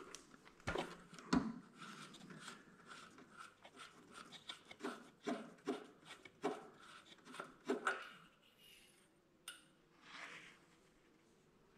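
Faint handling sounds as the oil dipstick is worked out of its tube in a lawn tractor's engine bay and wiped on a paper shop towel: a run of light clicks, scrapes and rubbing, then one sharp click and a short rustle near the end.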